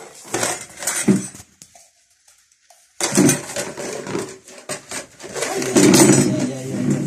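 Pots and household items clattering and knocking as they are moved about while a room is tidied. The sound breaks off for a second or so about two seconds in, then starts again abruptly.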